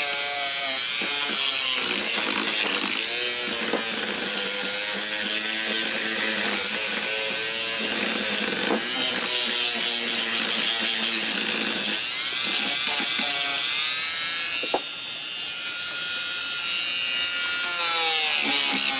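Handheld Dremel-type rotary tool running at high speed with a buffing bit pressed against a metal part; its whine sags in pitch and recovers several times as the bit is loaded and eased off. A single sharp tick about fifteen seconds in.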